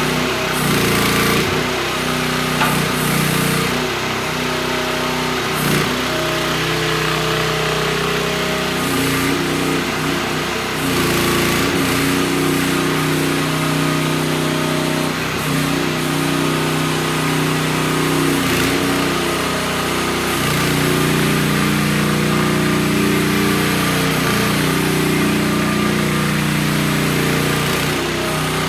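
420cc Briggs & Stratton single-cylinder engine of a JF Industrial JF12 mini excavator running steadily, its pitch shifting now and then as the boom, arm and tracks are worked.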